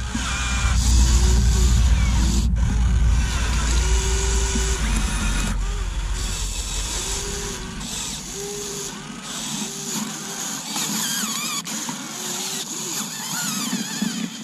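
Huina 1580 RC excavator's electric motors and gearboxes whining in a series of short bursts, the pitch sagging and recovering as they strain under load against a big boulder. A low rumble runs under the first half and fades about eight seconds in.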